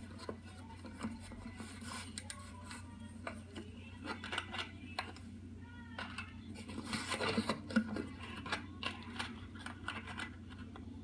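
Handling noise from the recording phone while it is carried and moved: irregular scrapes, rubbing and sharp clicks, busiest in the middle, over a steady low hum.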